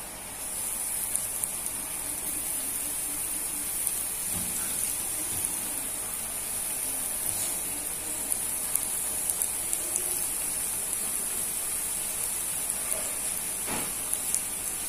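Cireng (tapioca fritters) sizzling in hot oil in a wok, a steady high hiss with scattered small crackles and pops that swells up about half a second in as they go into the oil. A single sharp knock sounds near the end.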